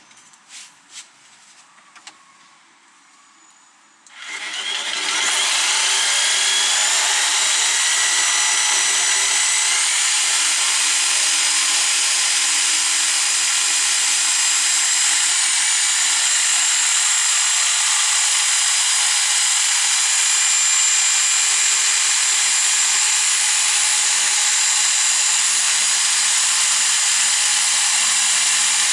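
Bosch PST 800 PEL jigsaw, starting about four seconds in after a few light clicks, then running steadily as it saws through a laminated chipboard panel, with a steady high whine over the cutting.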